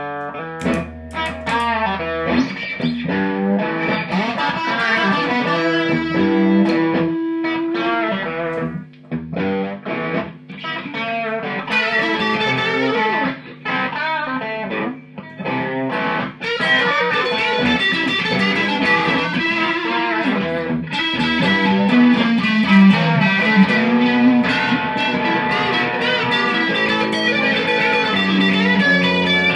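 Fender Sixty-Six electric guitar played through an amp with light overdrive crunch: blues licks and chords over a looped part, with one long held note about six seconds in.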